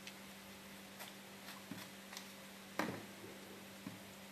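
Kitchen knife working on a hand-held eggplant as it is peeled and cut: a few scattered light clicks and scrapes, with one louder knock just under three seconds in, over a steady low hum.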